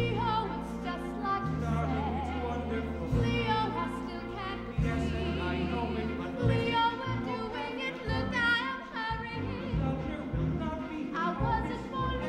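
A man singing a musical-theatre song with vibrato, over instrumental accompaniment with sustained low notes.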